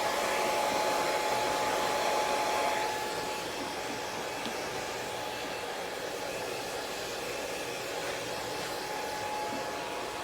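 Hair dryer blowing steadily with a thin whine, drying a dog's coat. It is louder for the first few seconds, then drops a little and runs on evenly.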